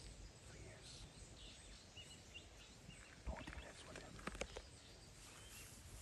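Near silence: faint outdoor bush ambience with a few soft high chirps and several sharp clicks or snaps about halfway through.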